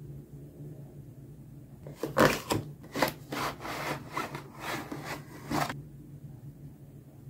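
Cardboard gaming-mouse box being opened by hand, its sleeve sliding and scraping off the plastic inner tray. A run of rubbing and scraping strokes starts about two seconds in and stops a little before the end, loudest at the start.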